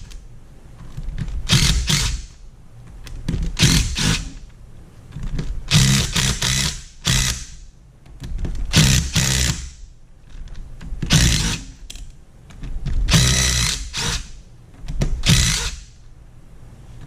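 A power tool run in short bursts about seven times, each lasting a second or so with brief pauses between.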